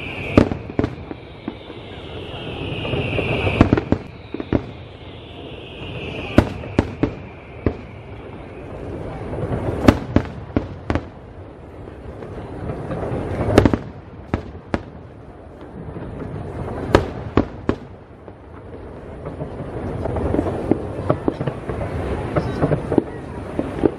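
Fireworks display: aerial shells bursting with sharp bangs, often several in quick succession, over a rumbling wash of noise between them. In the first several seconds high whistling tones sweep downward in pitch three times.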